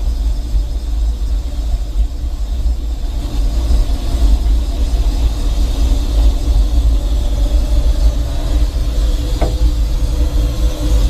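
Steam locomotive heard from its cab and tender while running along the track: a steady heavy rumble with a brief clank about nine and a half seconds in.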